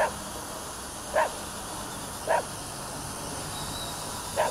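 A dog barking single short barks about a second apart, four times, over a steady hiss.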